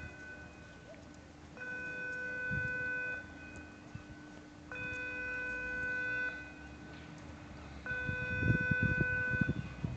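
Swing footbridge's warning signal sounding in regular pulses: a steady electronic tone about a second and a half on and a second and a half off, three full beeps. Wind rumbles on the microphone near the end.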